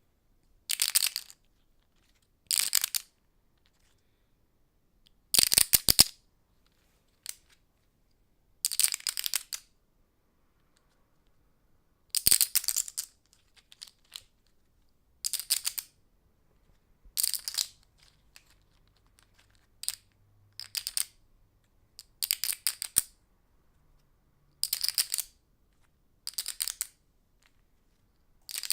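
Poker chips being shuffled by hand: a series of short bursts of rapid clicking as the chips clack together, each under a second, with pauses of a second or two between them.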